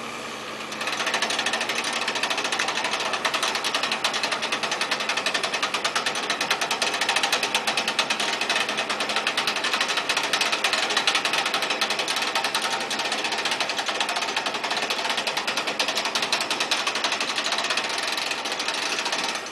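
A machine's fast, steady mechanical rattle, a dense run of rapid repeated clatter that grows louder about a second in.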